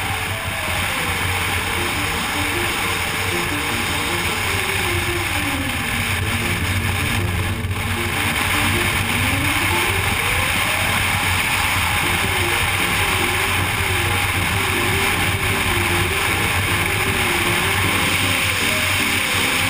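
BMW R1200GS boxer-twin engine running steadily at road speed, with wind rush over the microphone, under background music.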